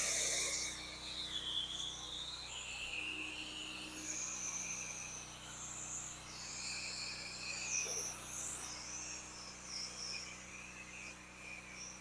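A spray hiss cuts off in the first second. Then insects call steadily in wavering high-pitched trills over a low steady hum.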